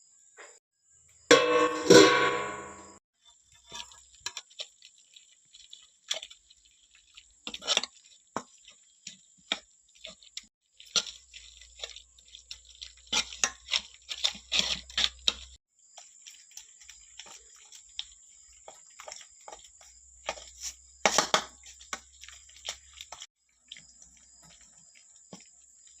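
Kitchen work sounds: water dripping and splashing, with scattered clinks and knocks of utensils and a loud ringing sound about two seconds in.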